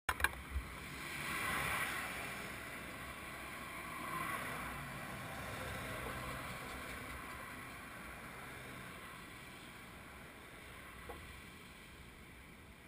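Highway traffic passing, a tractor-trailer and cars, its tyre and engine noise swelling twice in the first few seconds and then slowly fading away. A few sharp knocks at the very start.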